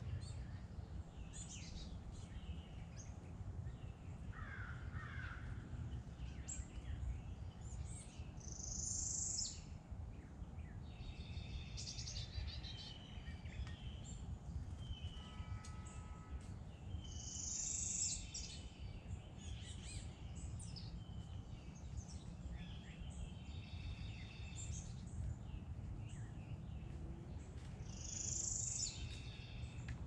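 Several wild birds singing and calling, with many short high chirps. A louder call of about a second comes three times, roughly nine seconds apart, and one lower, harsher call with overtones is heard near the middle. A steady low rumble of outdoor background noise runs underneath.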